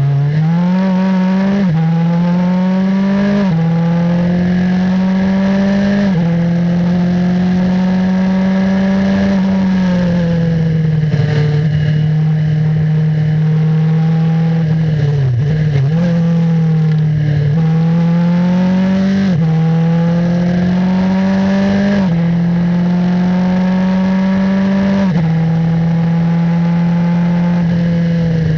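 Martini MK39 Formula 3 car's engine heard from the cockpit, accelerating hard through the gears: the note climbs and drops sharply at each upshift. Around the middle it falls away with quick throttle blips on the downshifts, then pulls up through the gears again, with more downshift blips at the end.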